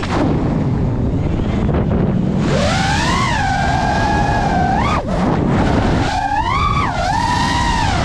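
FPV drone's motors and propellers whining, the pitch swooping with the throttle over a steady rush of prop wash. It falls sharply at the start, climbs back about two and a half seconds in, and dips steeply twice more, just after five seconds and near seven seconds.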